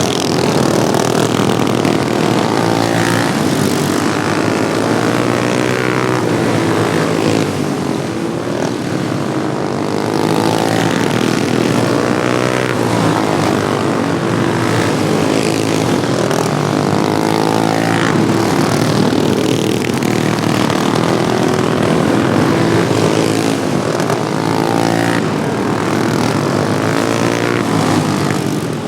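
Several modified Wheel Horse racing lawnmower engines running hard together, their pitch repeatedly rising and falling as they rev up and ease off.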